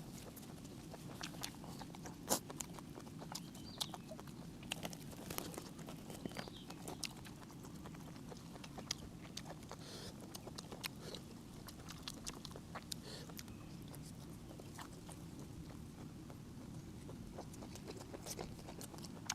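A person eating close to the microphone: irregular sharp smacks and clicks of chewing and lips, many per second at times, over steady low background noise.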